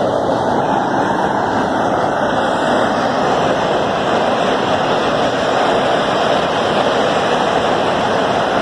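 Steady roar of steam escaping from a sugar mill's burst steam line.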